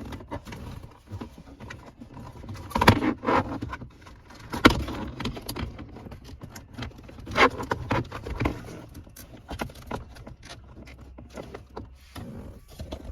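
Plastic center console trim and wiring connectors being handled and pushed into place: scattered clicks, knocks and rattles, the loudest knocks about three and five seconds in.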